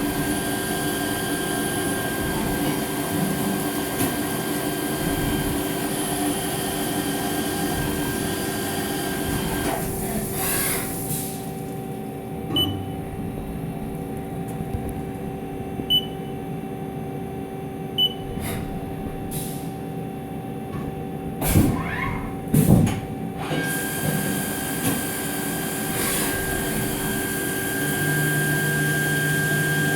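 Haas ST-20Y CNC turning-and-milling lathe running through an automatic machining cycle on aluminium: a steady machine hum with several constant tones and hiss. About ten seconds in the hiss drops away for some thirteen seconds, during which three short high beeps sound, followed by a few knocks and gliding changes in pitch before the hiss returns.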